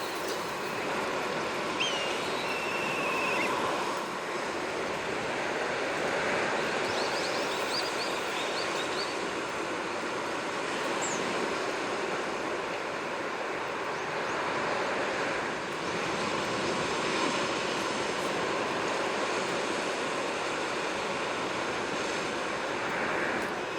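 Sea waves washing steadily on the shore, with a few faint, short bird calls over them: a whistled call about two seconds in and a brief run of chirps a few seconds later.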